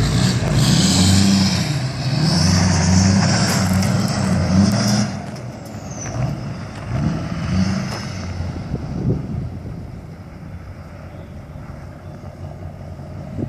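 Duramax 6.6-litre turbodiesel V8 of a Chevrolet pickup held at high revs in a burnout, with a hiss of tyres spinning on gravel and dirt. About five seconds in it drops off, and the engine sound fades as the truck drives away.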